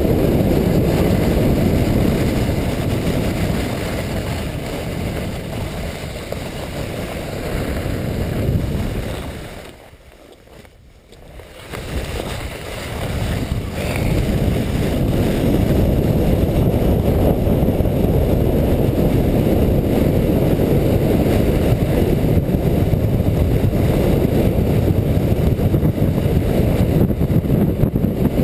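Wind rushing over a GoPro and a sled's runners hissing on groomed snow, at about 35 km/h on a luge run. The rush falls away about ten seconds in and builds back up about two seconds later.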